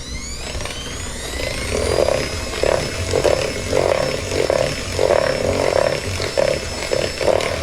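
Electric mixer starting up and beating cake batter: the motor whine rises over the first couple of seconds, then runs steady while the beaters churn with a repeated chunky sound.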